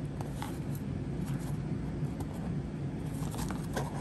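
Small scattered clicks and taps of jewelry and its box being handled, over a steady low hum.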